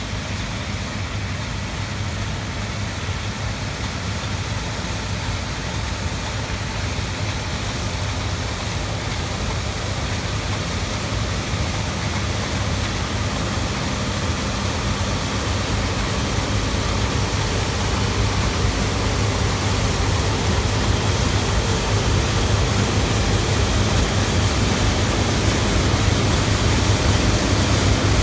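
Combine harvester running, a steady engine hum that slowly grows louder.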